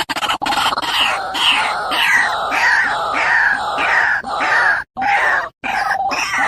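A bird's harsh calls, repeated about twice a second, each one dropping in pitch. The sound breaks off abruptly twice near the end.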